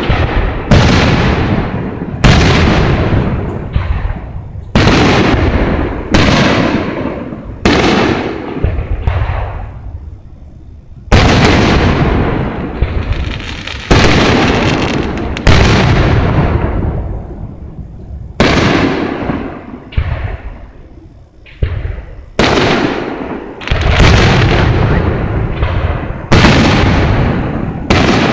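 Aerial fireworks shells bursting one after another, a sharp boom every second or two, each dying away in an echoing tail, with a brief lull about ten seconds in.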